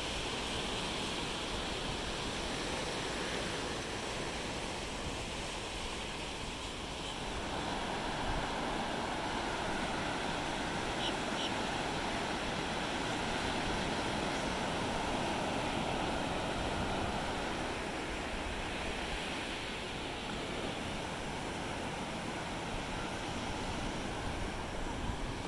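Ocean surf breaking and washing up a sandy beach: a steady rush that swells a little in the middle.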